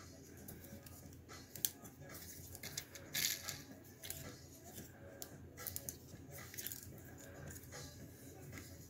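Scattered plastic clicks and small rattles of a Transformers Studio Series 86 Ratchet action figure being handled, its joints and parts moved by hand. The loudest cluster of clicks comes about three seconds in.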